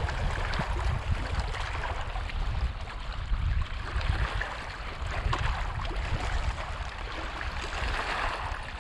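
Wind buffeting the microphone in an uneven low rumble, over small waves lapping against shoreline rocks.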